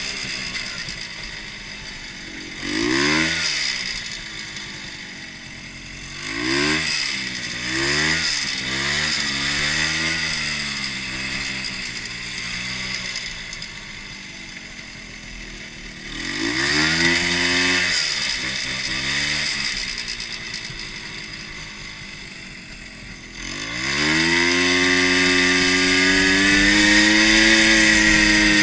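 250cc Rotax snowmobile engine on a custom racing lawn mower, revved up and let fall back several times, then brought up to high revs and held there near the end.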